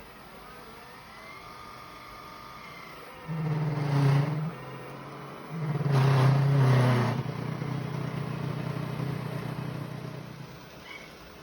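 Xiaomi Mi Robot Vacuum's motor running with a low hum that surges loudly twice, about a second each time, then carries on more steadily and fades near the end.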